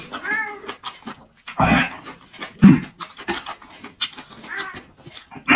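A cat meowing several times, short arching cries a second or two apart, over close crisp chewing clicks from someone eating. There is a single loud thump in the middle.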